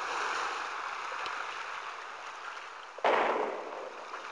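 A rushing noise sound effect, steady at first, with a sudden loud crash about three seconds in that dies away over about a second.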